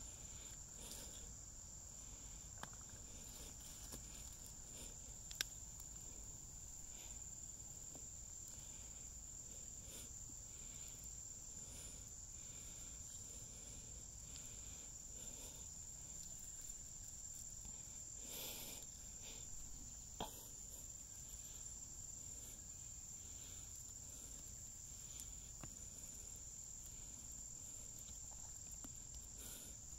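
Faint insect chorus: one steady high-pitched trill, with a few soft taps, two sharp clicks and a brief rustle partway through.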